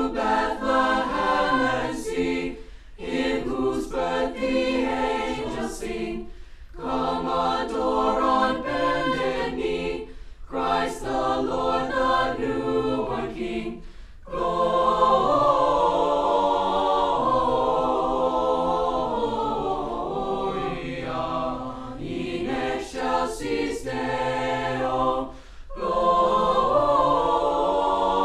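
A choir singing a cappella, in phrases broken by short pauses for breath.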